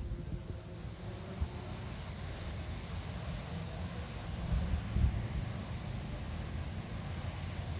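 Wind gusting on the microphone as a low, uneven rumble, with high-pitched wind chimes ringing steadily over it.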